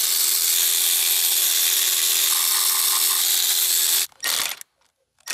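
Cordless power tool running steadily with a T30 Torx bit, spinning out engine bolts. It runs for about four seconds, stops, gives one brief second burst, then cuts off.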